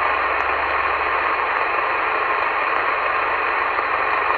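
CB radio receiver hissing with steady band static on single sideband, coming through the radio's speaker.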